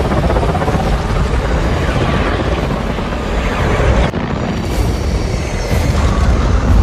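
Film sound design of Godzilla's atomic breath: a loud, dense rumbling blast of noise that changes abruptly about four seconds in.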